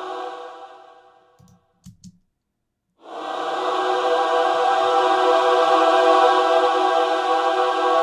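Synthesised choir pad sustained through a long reverb as a wide atmospheric chord. It fades away, and after a few soft clicks and a short silence it swells back in about three seconds in and holds steady.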